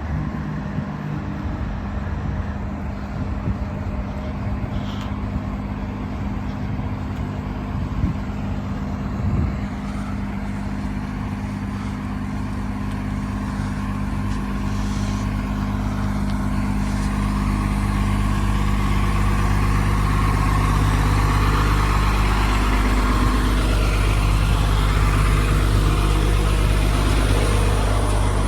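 Large vehicle's engine running steadily with a low hum. It grows louder about two-thirds of the way through as it comes closer.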